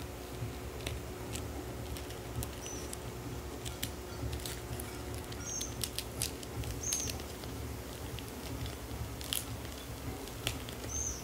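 A small blade cutting through the plastic wrap and packing tape on a cardboard parcel: scattered crackles and clicks with a few short high squeaks, over a steady low hum.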